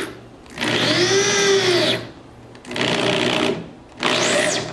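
Cordless drill driving screws into wooden boards in three bursts, its motor whine rising and falling in pitch as the trigger is squeezed and let off.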